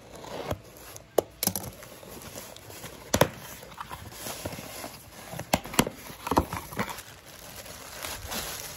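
Unboxing handling noise: a knife slitting packing tape on a cardboard box, then cardboard flaps and the box being handled, with scattered sharp clicks and knocks. Plastic wrap crinkles near the end as the boxed steam iron is pulled out.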